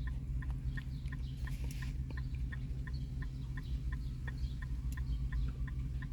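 Car's hazard-light flasher ticking steadily, about three light ticks a second, over a steady low hum.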